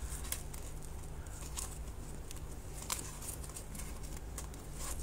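Crochet hook and yarn working single crochet stitches through the holes along the edge of a bag's inner form: irregular light clicks and scratches, several a second, over a steady low hum.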